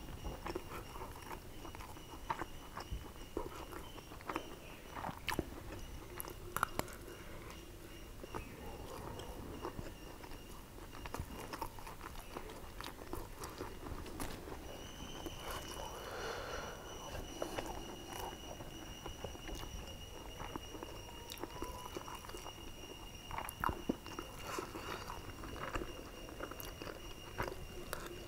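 A person eating mutton biryani: quiet chewing and mouth sounds with scattered light clicks and scrapes of a metal spoon on the plate.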